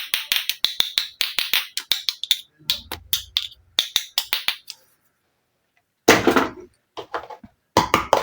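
Small plastic miniature toy pieces clicking and tapping against each other as they are handled, several sharp clicks a second. The clicking breaks off into silence a little past halfway, then a short rustling burst and a few more clicks follow.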